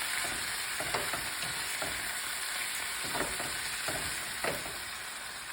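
Chicken wings sautéing with onion and garlic in a pan: a steady sizzle, with a utensil now and then scraping and tapping the pan as it stirs.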